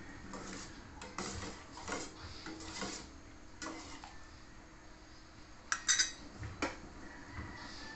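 A spoon stirring mung bean stew in a stainless-steel pot, scraping against the pot several times, then a few sharp metal clinks about six seconds in.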